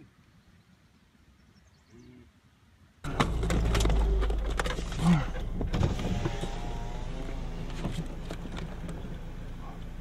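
Faint, near-quiet outdoor sound for about three seconds. Then heavy rain starts abruptly, pelting a car's roof and windows, heard from inside the cabin as a dense patter with a low rumble and sharp individual drop impacts. It eases slowly toward the end.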